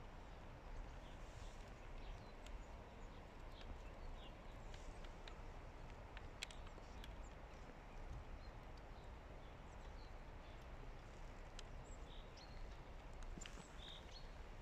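Faint steady outdoor background noise with scattered soft clicks and taps: a hooded crow pecking and tearing at a meaty bone.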